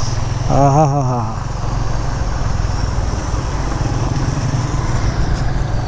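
Motorcycle engine running steadily at low speed, a constant low hum with road noise, heard from the rider's seat.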